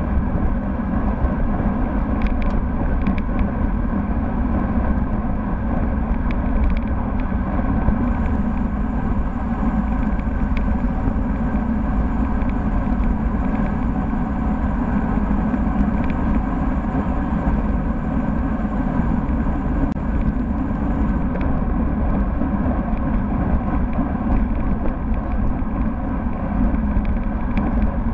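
Steady rush of wind and tyre-on-road rumble picked up by a bike-mounted camera on a road bike riding at speed, with a few light clicks and rattles in the first several seconds.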